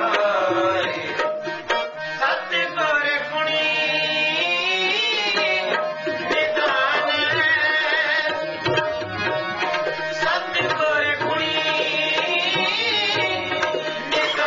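Sikh shabad kirtan: harmoniums holding a steady drone and melody, with tabla keeping the rhythm and a man singing a wavering, ornamented line.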